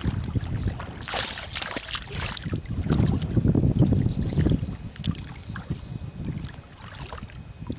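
A hooked pike thrashing and splashing at the surface of shallow water, in bursts about a second in and again around four seconds in. Wind rumbles on the microphone throughout, and the splashing dies down near the end as the fish is lifted out.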